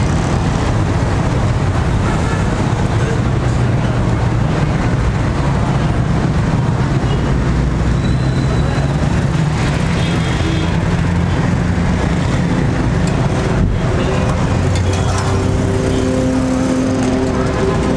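Busy roadside traffic noise: a steady, loud din of vehicle engines running.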